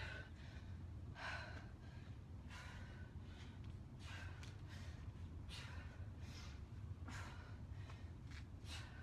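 A woman breathing out hard in short puffs from the exertion of punching, roughly one every half second to a second, over a faint steady low hum.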